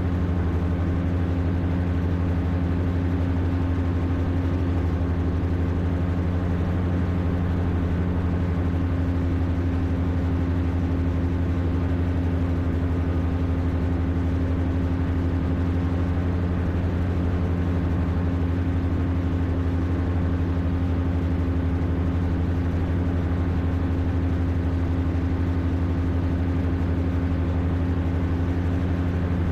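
Rotax 582 two-stroke, two-cylinder engine and propeller of an X'Air Standard microlight running steadily at cruise power in flight, a constant drone with no change in pitch.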